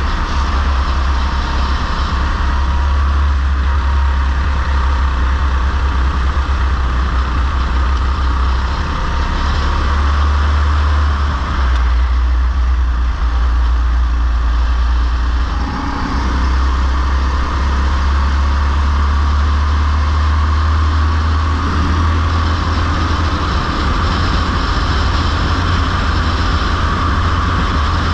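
Go-kart engine running steadily at racing speed, heard close up from the kart itself, with a brief dip about sixteen seconds in.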